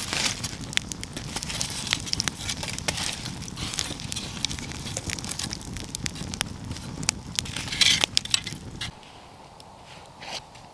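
Campfire of wood crackling and popping, with many sharp snaps over a low rumble that turns quieter near the end.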